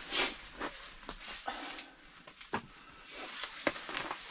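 Irregular small clicks, taps and rustles of a person eating and handling food and packaging on a table, with sharper taps about a quarter second in and again near the end.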